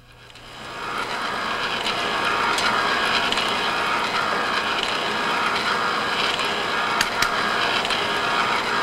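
Wire-bundle abrasion test rig running, sliding two aircraft wire bundles back and forth against each other with a steel shaving trapped between them: a steady mechanical running noise that fades in over the first second and fades out at the end, with two sharp ticks about seven seconds in.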